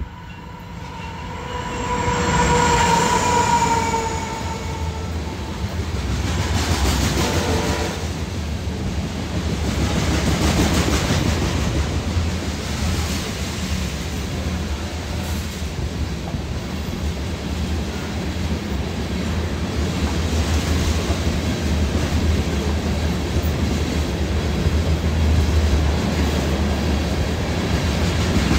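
CSX freight train passing close by: the locomotive horn sounds for a few seconds early on, sinking slightly in pitch, then the steady rumble and clickety-clack of heavy loaded taconite ore cars rolling past.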